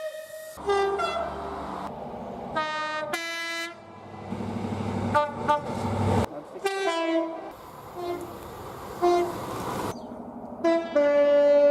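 Two-tone train horns from several trains in turn, each sounding short blasts that alternate between a high and a low note. Abrupt cuts separate the clips, and train rumble runs underneath. A longer steady horn note near the end is the loudest.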